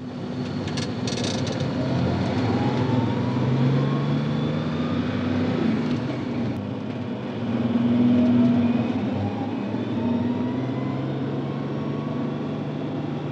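Street traffic: car engines running, with several rising in pitch as they accelerate or pass, and the sound swelling about eight seconds in.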